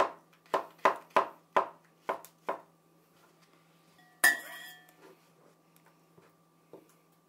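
Kitchen knife chopping vegetables on a cutting board, about seven quick strokes over the first two and a half seconds. A little past four seconds in comes a single ringing clink of the knife against a bowl as the cut pieces go in.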